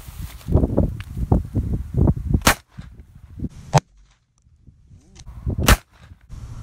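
12-gauge shotgun firing: three sharp shots a second or two apart, the first about two and a half seconds in, after a low rumbling noise.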